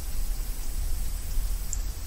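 Steady background noise between spoken phrases: a low rumble with a faint hiss, the room and microphone noise of a voice-over recording.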